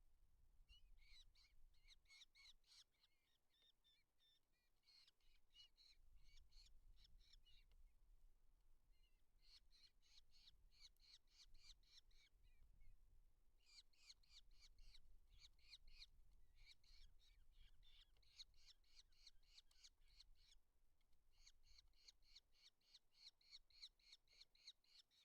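Eurasian hobby calling faintly at the nest: about six bouts of rapid, shrill repeated notes, each bout lasting two to three seconds, with short pauses between.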